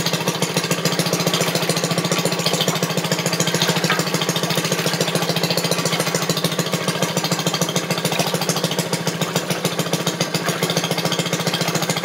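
Maytag wringer washer's two-stroke gasoline engine running steadily with a rapid, even firing rhythm, driving the agitator and wringer rollers.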